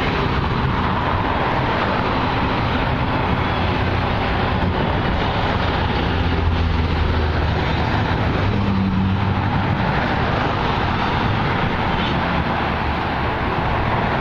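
Norfolk Southern freight train's cars rolling slowly past, a steady rumble of wheels on rail.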